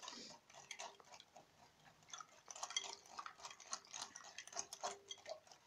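A utensil stirring a liquid egg-and-milk custard mixture in a glass bowl, tapping against the glass in quick, irregular light clicks.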